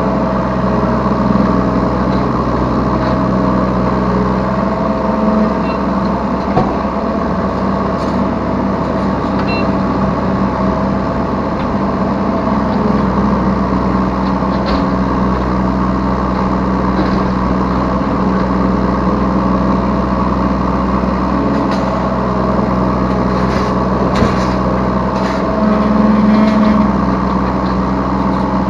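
Yanmar B3 Sigma 3-tonne mini excavator's diesel engine running steadily, heard from the operator's seat while the machine works, with higher tones shifting as the controls are moved and a few sharp knocks. The engine briefly works harder about 26 seconds in.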